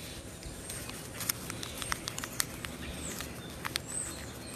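Newspaper crackling and rustling in irregular little clicks as it is rolled by hand into a small tube. A few faint, brief high bird chirps sound in the background.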